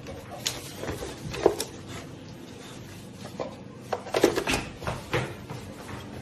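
Plastic toys knocking and clattering against a hard tabletop as a bulldog paws and tugs at them: a run of sharp knocks, the loudest about a second and a half in and a quick cluster about four seconds in.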